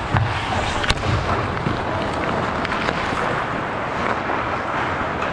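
Steady noise with a few sharp knocks or clacks, the sharpest just before a second in and smaller ones around two and three seconds.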